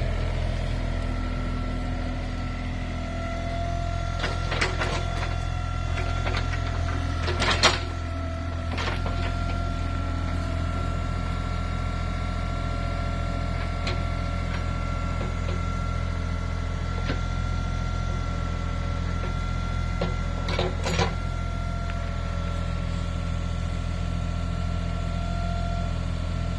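Excavator engine running steadily, a low drone with a steady high tone over it. A few sharp knocks or clanks come through, the loudest about seven and a half seconds in and a pair a little after twenty seconds.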